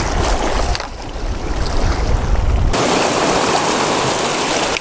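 Surf washing over lava rocks, with wind rumbling on the microphone. About two and a half seconds in, the sound switches abruptly to a steadier hiss of waves frothing around the rocks.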